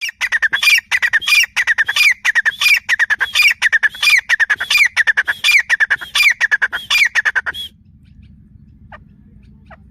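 Grey francolin calling: loud, harsh notes repeated rapidly in phrases, about one and a half phrases a second, stopping suddenly about three-quarters of the way through.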